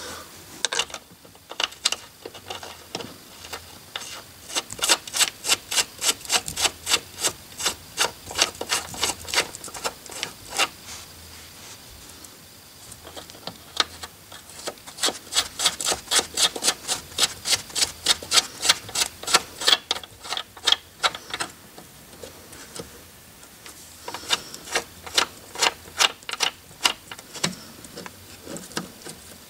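Hand ratchet clicking in three long runs of quick, even clicks, driving in the top-mount bolts of a rear strut.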